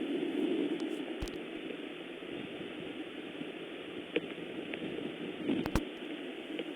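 Steady rain falling, an even hiss with a few short clicks and taps scattered through it.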